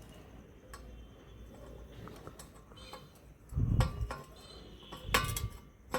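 A spanner working nuts on an exhaust turbo whistle being tightened: scattered small metallic clicks and clinks, with a dull knock about three and a half seconds in and another about five seconds in.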